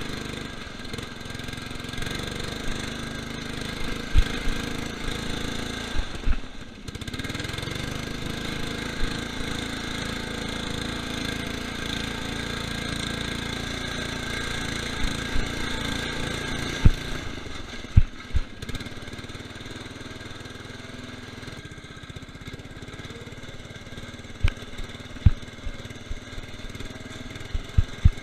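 Lawn tractor's 12.5 hp Briggs & Stratton engine running steadily. It dips briefly about six seconds in and runs a little quieter in the second half, with a few sharp knocks scattered through.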